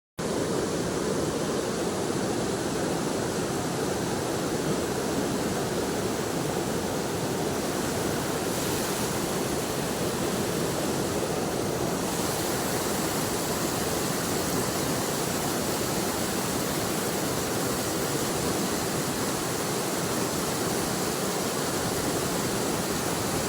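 River water rushing steadily over rocks, an even rush with no breaks.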